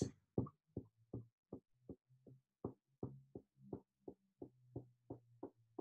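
Light blue Kwik Stix solid tempera paint stick drawn in short up-and-down strokes across a canvas: faint, even scrapes about three a second.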